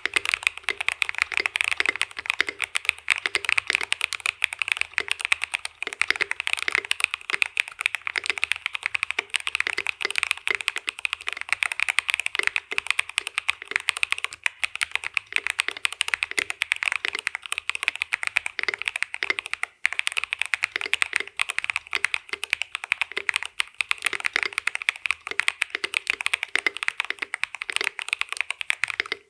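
Akko YU01 resin-cased mechanical keyboard being typed on fast and continuously, a dense stream of keystrokes with a short pause about twenty seconds in.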